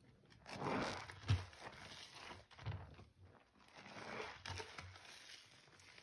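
A gloved hand sloshing and squeezing foamy, sudsy water in a sink basin: uneven wet swishes that swell and fade several times, with soft low thuds, the sharpest a little over a second in.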